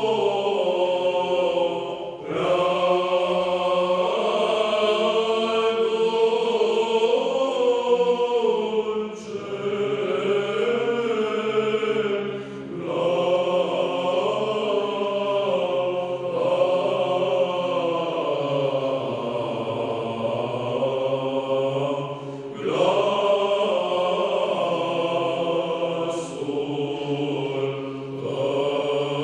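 All-male choir singing Orthodox Byzantine chant a cappella: a melody moves in long phrases over a steady held low drone (ison), with brief breaths between phrases about two, twelve and twenty-two seconds in.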